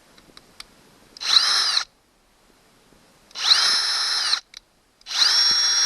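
Power drill run in three short bursts, about half a second to a second each, its motor whining up to speed and winding down each time. It is a larger 9/64-inch bit opening the pilot holes for the transducer mount's screws.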